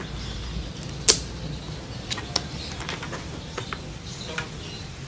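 Handling noises of a full-face motorcycle helmet being pulled on: scattered clicks and knocks of the shell and visor, the sharpest one about a second in, with smaller ones after it.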